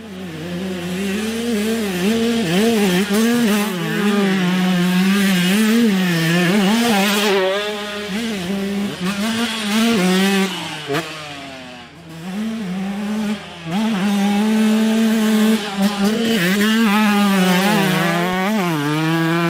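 Two-stroke motocross bike ridden hard on a dirt track, its engine note rising and falling as the throttle is worked, dropping away briefly several times where the rider rolls off.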